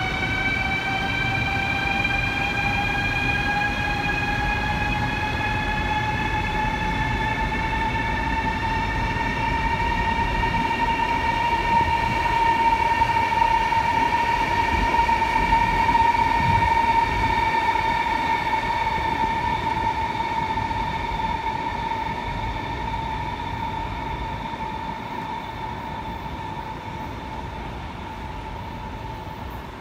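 Chinese CRH high-speed electric train pulling out of a station. Its traction motor whine rises slowly in pitch as it gathers speed, then holds and fades, over the low rumble of the train on the rails.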